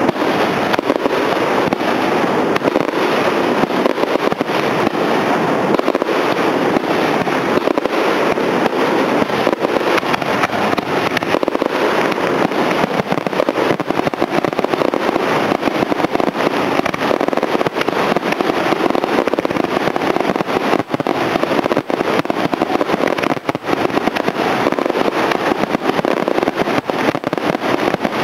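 Aerial fireworks display in a continuous, dense barrage of bangs and crackles, shells bursting one on top of another without a break.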